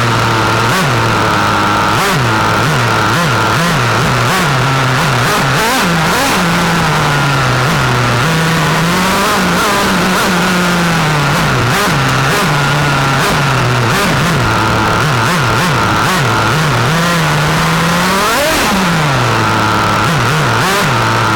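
Small Longo nitro engine of a 1/8-scale RC racing car, heard close up from the car itself, revving up and falling back over and over as the car is driven. A long climb to a high rev comes near the end, then the engine drops back to a steady idle, with scattered sharp clicks throughout.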